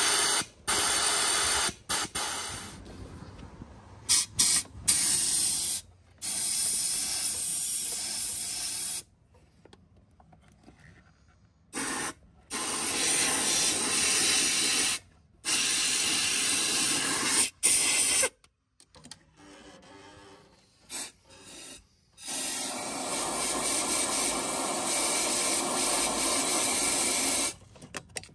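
Compressed-air blow gun fired in repeated blasts of hiss into the car's body drains to blow them clear. Some blasts last a fraction of a second and the longest about five seconds, near the end.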